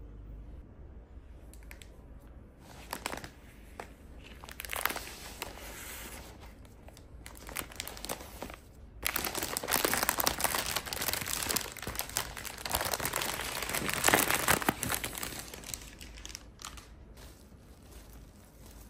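Irregular crinkling and rustling, as of packaging being handled, loudest in the middle and dying down near the end.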